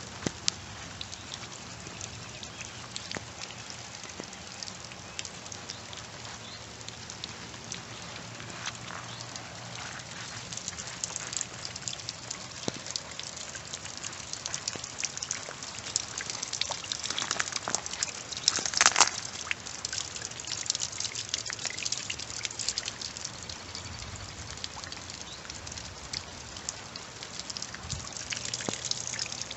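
Steady rain pattering around the microphone, a constant hiss full of small close drop ticks. The pattering gets busier about halfway through, with one louder swish a little after that.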